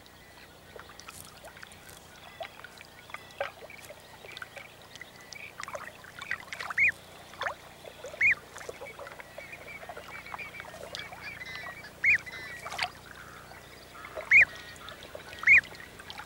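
American coots calling: short peeps that rise and fall in pitch, single and a second or more apart, growing more frequent and louder from about the middle on, over faint chattering calls.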